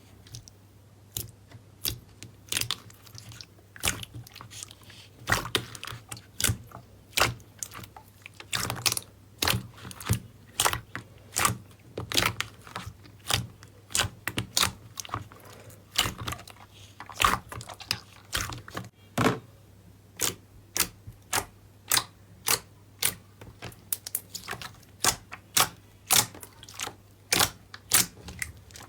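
Slime being worked by hand, giving a string of sharp crackling pops and crunches, irregular at first and then about one or two a second.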